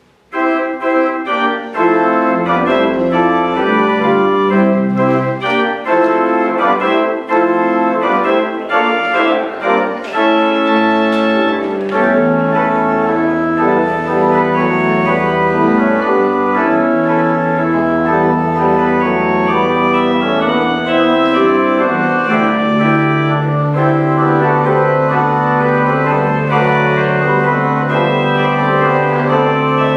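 Church organ playing the closing postlude: full sustained chords that start suddenly, with long held deep bass notes in the second half.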